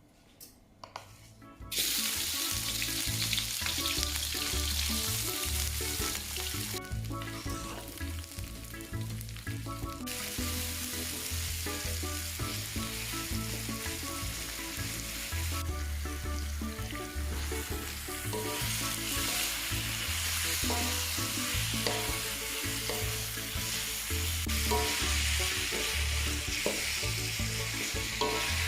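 Food sizzling hard in a hot frying pan as it is stirred, starting about two seconds in and easing off briefly twice. Background music with a steady bass line plays underneath.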